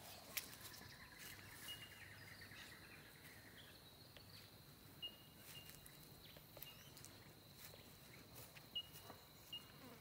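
Near silence: faint outdoor ambience, a steady high insect drone with a few short bird chirps and occasional soft clicks.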